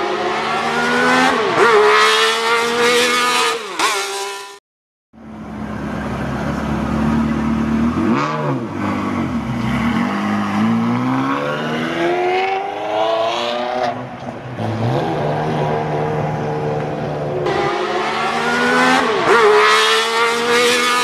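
Ferrari 360 Modena's V8 exhaust as the car drives slowly past, loud, the engine note dipping and then rising steadily as it accelerates away.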